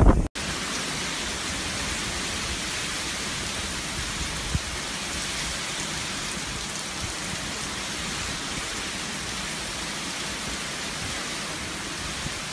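Heavy hurricane rain pouring down in a steady, even hiss. A blast of wind buffeting the microphone cuts off abruptly just after the start.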